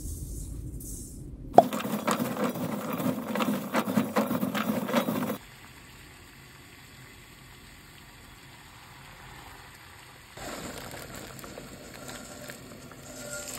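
Edamame pods (dadachamame) in a stainless steel bowl: salt trickles onto them, then for a few seconds the pods are rustled and rattled against the bowl with many quick clicks. After that, a pot of water is boiling quietly and steadily, and about ten seconds in the pods are tipped into the boiling water with a louder splashing rush.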